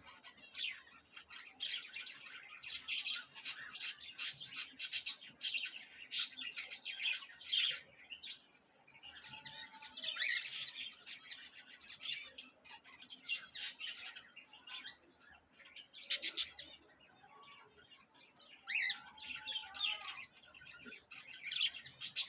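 A flock of budgerigars chattering, with rapid chirps and squawks in dense bouts and short lulls about eight and seventeen seconds in.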